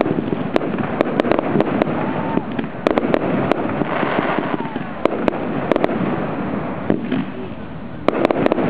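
Fireworks display: aerial shells bursting in an irregular string of sharp bangs and crackles, with people talking in the background.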